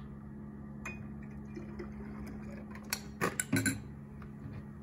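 Light clinks and taps of a cup and glassware on a table, a few scattered and then a cluster with a low knock about three seconds in, over a steady low hum.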